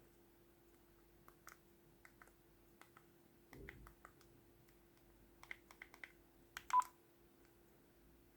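Phone keypad tones as a number is dialed: a string of short, quiet beeps in irregular groups, ending with one louder beep.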